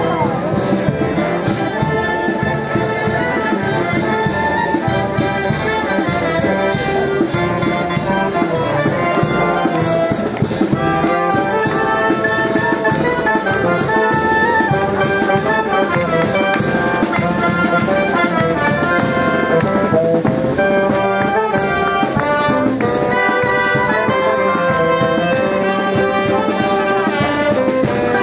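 Brass band playing a dance tune: trumpets, trombones, saxophone and tuba, with a drum.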